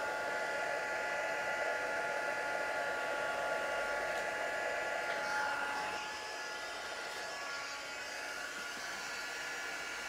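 Embossing heat gun blowing steadily, a rush of air with a steady motor whine, as it melts embossing powder on vellum. Its sound drops a little about six seconds in.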